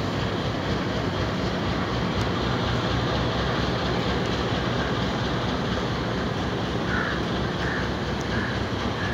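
Diesel locomotive engine running with a steady low drone as the train rolls slowly into a station platform. Four short, faint high notes come near the end.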